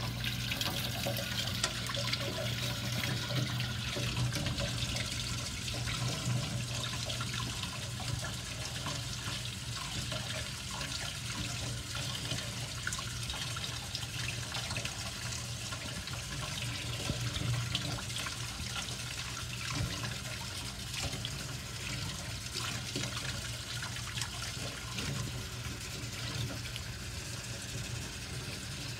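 Kitchen faucet running steadily into a stainless steel sink, the stream splashing over hands rinsing pennies, with a low steady hum underneath.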